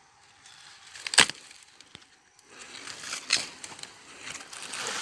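A sharp knock on a wooden slatted box trap about a second in, then a run of scraping and rustling against the wooden slats.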